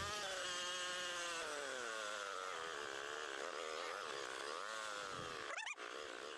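Engine of a 1985 Honda 250SX three-wheeler running as it is ridden, its pitch sliding down as the rider eases off in the first couple of seconds and then wandering up and down. There is a quick sharp rev and drop near the end.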